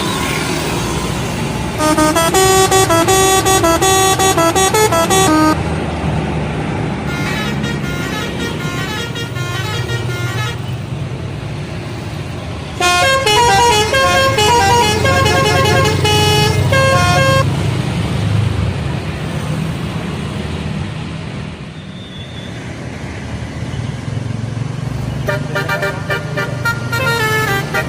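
Indonesian bus telolet horn playing quick tunes of stepping notes in several bursts, the loudest about two seconds in and again about thirteen seconds in, with a fainter run between them and another near the end. Bus engines and traffic rumble underneath.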